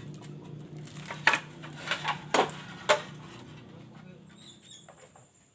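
Clay roof tiles knocking and clinking as they are handled and stacked on the roof, a handful of sharp knocks in the first three seconds, then quieter.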